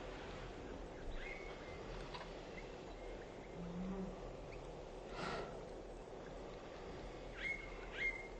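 Short bird calls, each a quick note dropping into a brief level tone, once about a second in and twice in quick succession near the end, over a steady background hiss. A brief rush of noise comes about five seconds in.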